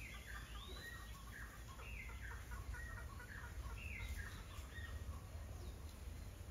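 Faint bird calls in a repeated phrase: a falling note followed by a quick run of short lower notes, about every two seconds.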